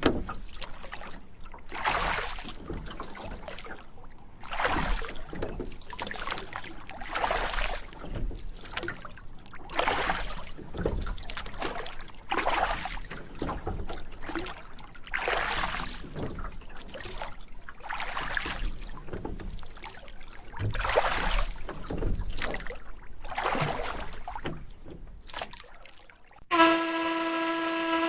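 Water washing in regular swells, one about every two and a half seconds. Near the end a loud, steady horn blast starts suddenly.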